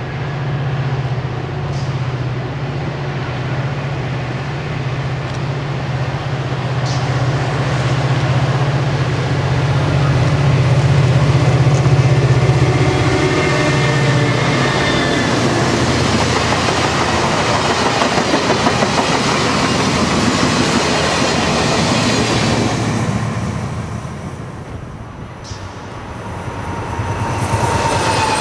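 Caltrain diesel-hauled passenger train approaching and passing close by. The locomotive's engine drone builds and goes past, then the bilevel cars clatter by with rhythmic wheel clicks over the rail joints. The sound fades after about 23 seconds, and a rumble rises again near the end.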